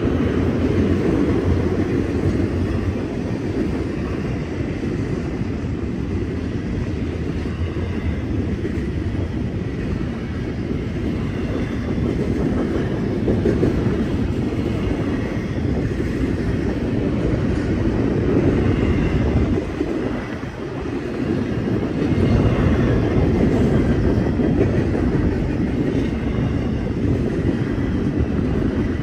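Norfolk Southern freight train rolling past, a steady loud noise of its wheels on the rails. It dips briefly about twenty seconds in, then picks up again.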